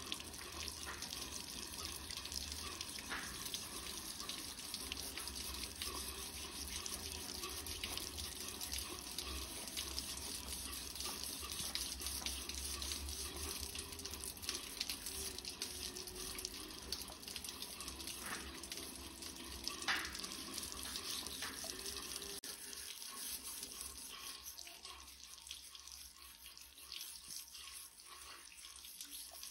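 Running water from a hose splashing onto a rusty cleaver blade and a steel grate, with occasional scraping ticks as the blade is scrubbed. This rinses off rust loosened in a rust-removal bath.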